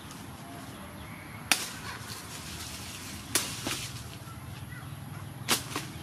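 A steel cleaver chopping into sugar cane stalks at their base: three sharp chops about two seconds apart, the second and third each followed by a lighter knock.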